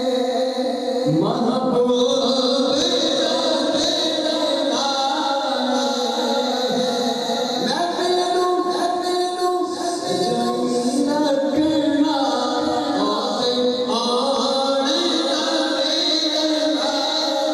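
Naat recitation: a male voice singing long, sustained melodic lines that glide between notes, with no clear beat.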